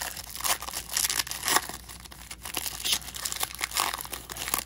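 A stack of 2012 Panini Golden Age trading cards being handled: cards sliding and flipping against each other in short, irregular rustles.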